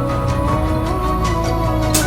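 Background music: a melodic instrumental line moving in held notes over a steady bass, with light percussive ticks.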